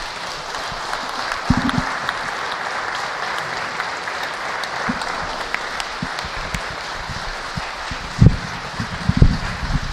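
A hall of parliamentary deputies applauding steadily at the close of a speech. A few dull low thumps near the microphone stand out, the loudest about eight and nine seconds in.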